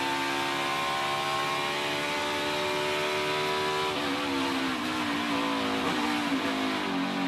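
NASCAR Cup car's V8 engine heard from the in-car camera, held at full throttle near 8,000–9,000 rpm with its pitch creeping slowly up. About four seconds in the note drops and falls unevenly as the driver lifts and brakes at the end of the straight.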